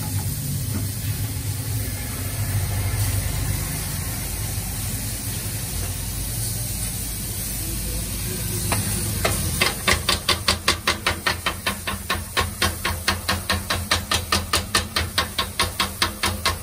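Vegetables sizzling steadily on a hot flat-top steel griddle. From about ten seconds in, a rapid, even metallic clacking of about four strikes a second as steel griddle scrapers chop the vegetables against the plate.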